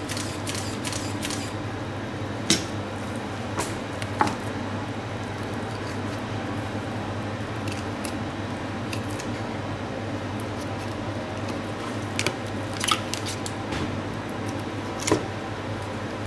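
Boning knife cutting and scraping through a whole raw hen on a plastic cutting board as it is deboned, with a few sharp clicks of the blade over a steady low room hum.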